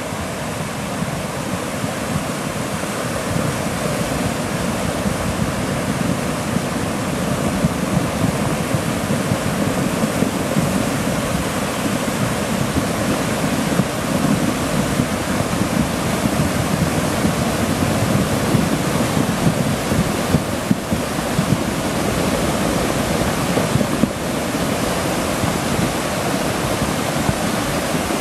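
Flash-flood water rushing and churning down a rocky creek bed: a loud, steady rush of muddy, debris-laden water, growing somewhat louder over the first few seconds.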